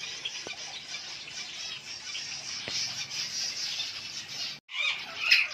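Aviary finches chirping, many small overlapping calls at once. The sound cuts out for a moment a little over four seconds in, then a louder cluster of chirps follows near the end.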